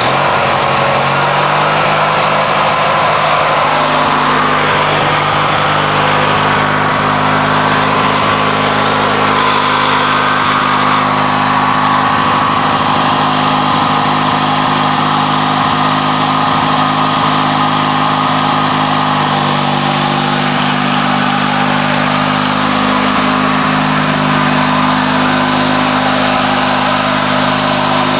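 Briggs & Stratton 16 hp opposed twin-cylinder engine of a 1990 Montgomery Ward lawn tractor running steadily and smoothly, now firing on a newly fitted ignition coil after a no-spark fault. Its speed shifts slightly about two-thirds of the way through as the tractor is driven off.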